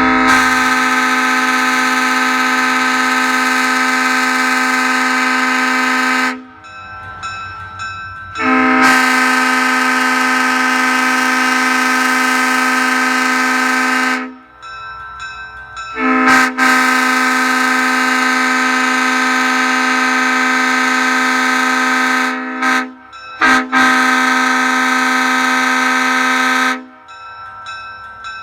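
A 1960 Leslie S3L three-chime air horn (bells 25, 31 and 44, aluminum Tabby heads, original power chambers never remachined) sounding a steady chord in several long blasts of about six seconds each, with a couple of short toots near the end before a final blast.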